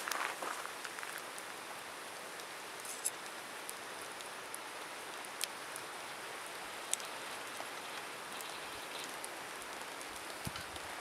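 Wood campfire burning: a steady hiss with a few sharp crackling pops, about three seconds, five and a half seconds and seven seconds in.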